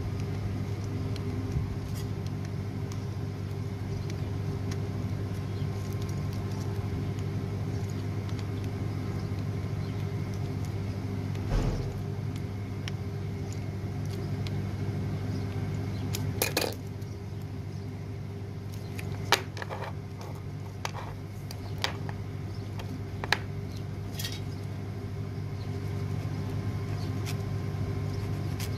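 A steady low machine hum, under scattered sharp metallic clicks and taps as pliers work a metal battery terminal clamp. The clicks come mostly in the second half.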